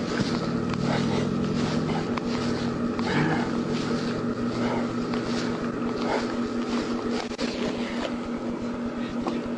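Rhythmic rustling of chest compressions during CPR, about two a second, over a steady low motor-like hum.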